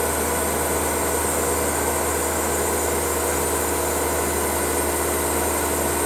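Road roller's diesel engine running at a steady, even drone while the heavy drum rolls slowly forward.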